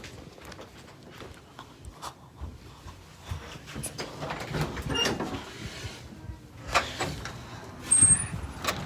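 Handling noise and footsteps as a phone is carried through a house: scattered knocks and rustling, a louder knock about seven seconds in, and a brief high squeak near the end.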